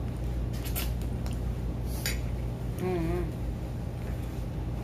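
Eating sounds: a few short crisp clicks and crackles of biting and handling food, and a brief hummed 'mm' about three seconds in, over a steady low hum.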